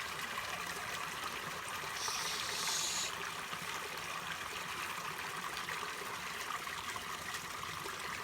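Shallow creek water running and trickling over rocks, steady, with a brief brighter hiss about two seconds in.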